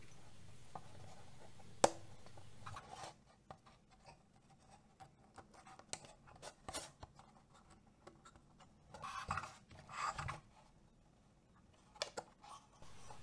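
Faint handling sounds of thin wooden dowels being pressed into place on a plywood panel: a sharp click about two seconds in, scattered light ticks, a short scraping rustle around nine to ten seconds, and a few small clicks near the end.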